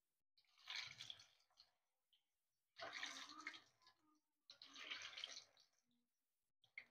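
Cabbage kofta balls deep-frying in hot refined oil in an aluminium pot, the oil sizzling and bubbling. It comes and goes in three spells of about a second each.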